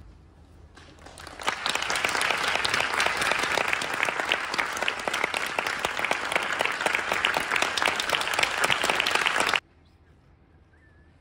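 Theatre audience applauding, the clapping swelling in about a second in, then cutting off suddenly near the end.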